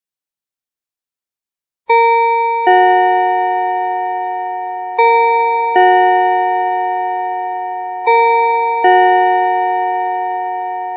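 Two-tone school bell chime sounding a ding-dong, a higher note then a lower one, three times about three seconds apart, each note ringing on and fading slowly. It starts about two seconds in.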